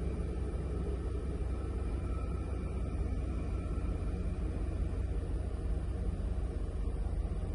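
2008 GMC Yukon V8 engine running steadily at idle, a low, even rumble.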